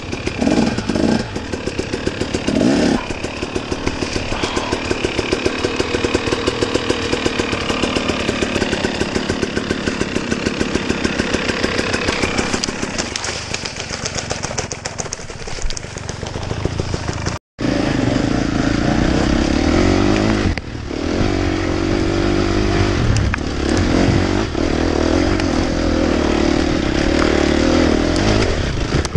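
Husqvarna dirt bike engine running at low revs with an even, rapid pulse. About halfway through the sound cuts off abruptly, and the engine comes back heavier and lower, pulling under load.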